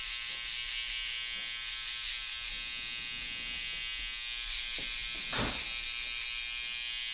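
Electric hair trimmer running steadily with a high buzzing whine as its blade works along a beard line on the cheek, with a brief short sound about five seconds in.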